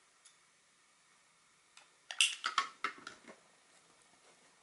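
A run of light, sharp clicks and taps about two seconds in, after a faint single click near the start: small handling sounds of work on a motherboard while a new capacitor is pushed into its holes with the soldering iron.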